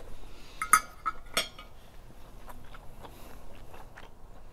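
Chewing a mouthful of bacon omelette, with two sharp clinks about a second in, a metal fork set down against a ceramic plate, then small wet mouth ticks.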